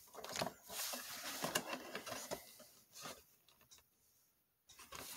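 Faint rustling of a small plastic bag with light handling clicks for about two and a half seconds, then near quiet.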